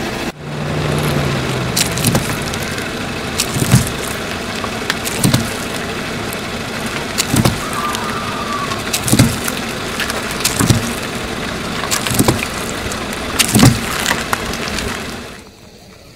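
A car rolling slowly over juice cartons on asphalt: steady engine and tyre noise, broken by about eight sharp pops spaced a second and a half to two seconds apart as the cartons burst under the wheels. The noise falls away near the end.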